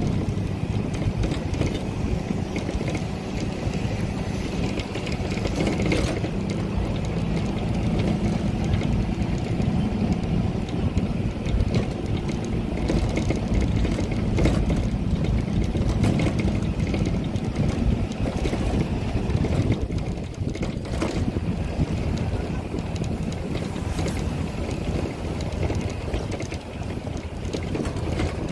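Microbus driving along a rural road, heard from inside the passenger cabin: a steady low engine drone and road rumble.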